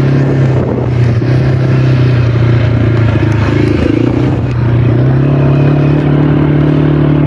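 Quad bike engine running steadily as the bike rides along a sandy track.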